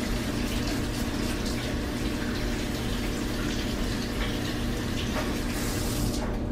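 Kitchen tap running while hands are washed under it, shutting off near the end; a steady low hum sits underneath.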